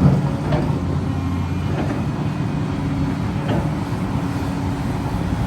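Kobelco 380 excavator's diesel engine running steadily, with a few short knocks, about half a second, two and three and a half seconds in.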